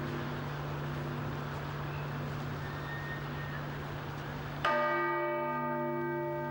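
Church bells of St Sophia Cathedral ringing: low bell tones hum and pulse steadily. A higher bell is struck sharply about four and a half seconds in, and its ring dies away slowly.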